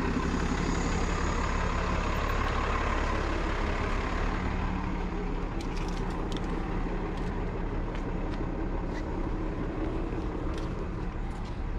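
City street traffic noise: steady rumble of passing cars and a large transit vehicle, easing slightly, with a few faint clicks in the second half.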